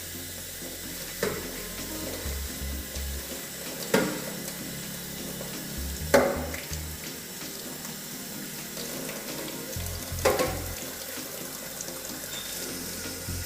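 Tap water running into a kitchen sink while a coffee machine's plastic drip tray is washed, with four sharp knocks as the parts are handled.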